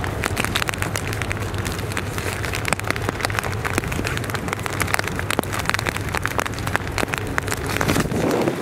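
Rain pattering close to the microphone as many irregular sharp drop ticks, over a steady low drone from a passing motor boat's engine.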